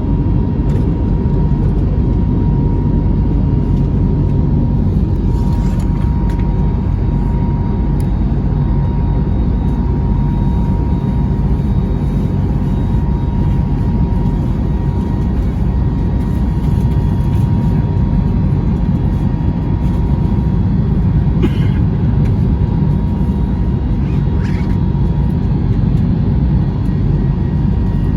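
Cabin noise inside a Delta Airbus A321neo: a loud, steady low rumble of engines and airflow, with a faint steady whine that fades partway through and a few light clicks.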